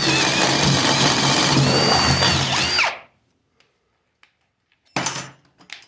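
Ridgid Gen 5X brushless Stealth Force hydraulic pulse driver spinning a 1/2-inch Spyder Power auger bit into a pressure-treated 4x4 for about three seconds, then stopping. A brief second burst comes about five seconds in, followed by a few light clicks.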